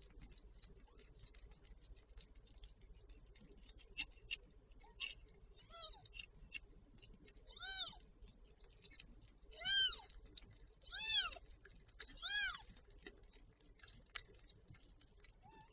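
Newborn kitten mewing: a handful of short, high-pitched, arching cries coming every second or two in the second half, the loudest a little past the middle, with faint soft clicks in between.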